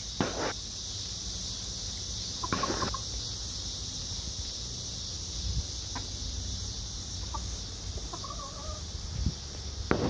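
Backyard hens clucking as they forage: a short call about two and a half seconds in and a few soft calls near the end, over a steady high-pitched buzz.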